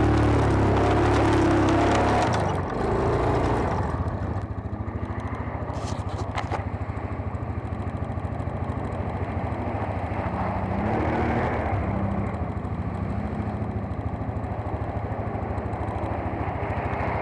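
ATV engine running under throttle, then dropping to a steady idle about two and a half seconds in. Over the idle, a second ATV's engine rises and falls in pitch as it rides through a shallow creek crossing, with water splashing.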